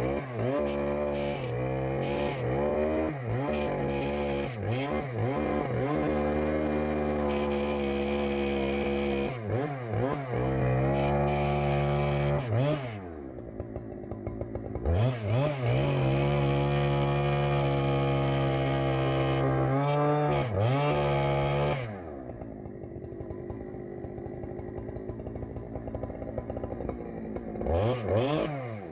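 Husqvarna chainsaw revving up and down again and again, held at high revs for several seconds at a time. It then drops to idle for the last several seconds, with one short rev near the end.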